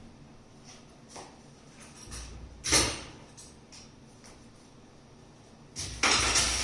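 Household objects being handled while someone rummages for a bottle: a few faint clicks, a sharp clatter about three seconds in, and a louder rustling scrape near the end.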